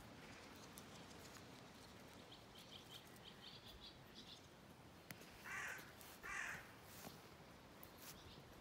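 A crow cawing twice, about a second apart, a little past the middle, after a small bird's quick run of high chirps; otherwise near silence.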